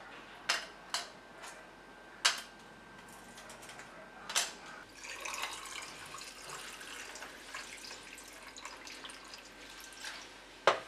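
Ice cubes dropped into glass tumblers, clinking sharply about five times. Then clear water is poured over the ice, a steady splashing pour with the ice crackling, lasting about five seconds. One more sharp glass clink comes near the end.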